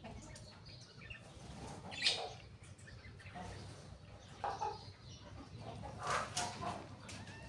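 Birds sounding in short, irregular bursts, with a few brief calls; the loudest burst comes about two seconds in.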